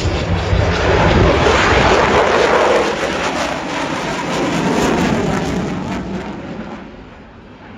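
Jet aircraft making a low pass: a loud roar that swells, drops in pitch as it goes by, and fades away over the last couple of seconds.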